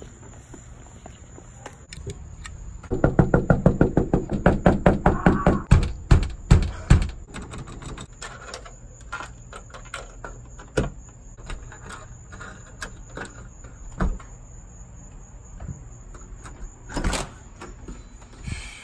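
Knocking on a front door: a quick run of knocks for about four seconds, then a few single knocks, and a thud near the end as the door is opened.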